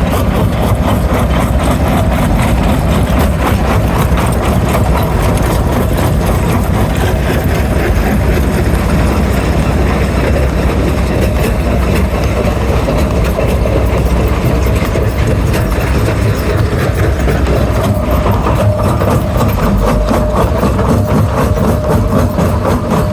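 Stone crusher running steadily under load: a deep, constant machine drone with a dense crackle and rattle of rock being broken.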